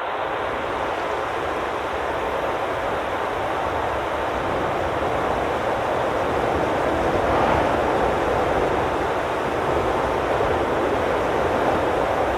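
Steady, dull static-like noise with no high hiss, swelling a little about halfway through.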